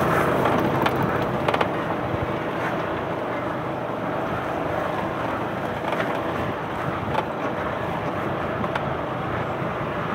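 Wind blowing across the microphone: a steady rushing noise, with a few light clicks and knocks.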